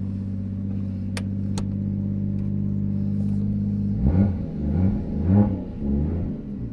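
Toyota Chaser Tourer V's 1JZ-GTE turbocharged inline-six idling steadily, heard from the cabin, then blipped four times in quick succession about four seconds in, each rev rising and falling straight back. Two sharp clicks sound a little after the first second.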